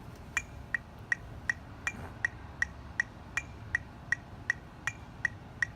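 Metronome clicking steadily at about 160 beats a minute, roughly three clicks a second.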